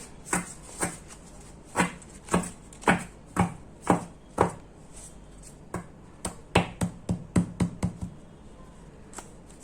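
Oracle cards being handled and knocked against a hard surface: sharp taps about two a second, then a quicker run of taps a little after halfway.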